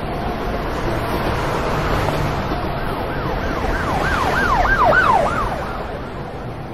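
Emergency vehicle siren in a fast up-and-down yelp, about three sweeps a second, growing louder and then fading. A steady rushing noise runs underneath.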